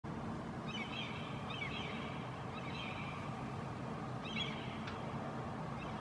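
Common gulls calling in three short runs of high notes, over a steady low background rumble.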